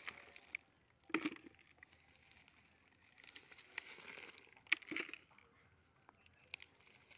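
Soil and fibrous roots of a freshly dug wild turmeric (kasthoori manjal) clump rustling and crackling as it is handled by hand, with a few sharp knocks, the loudest about a second in and again around five seconds in.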